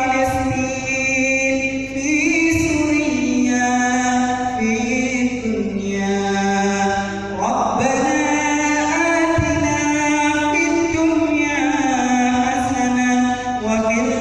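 A man's voice chanting an Arabic prayer in a slow, melodic style, holding long notes that step up and down with wavering ornaments.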